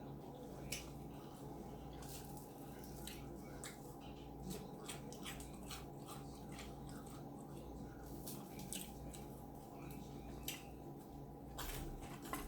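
Close-up chewing of crusty cheese bread: irregular small wet clicks and crunches from the mouth, over a steady low hum.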